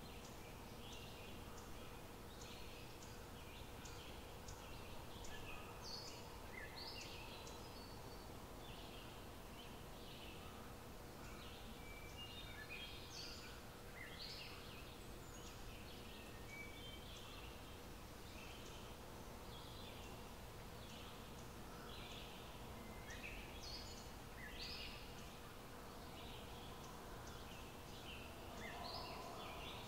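Faint birdsong from several small birds: short high chirps and calls, several a second, overlapping, over a steady low background hum.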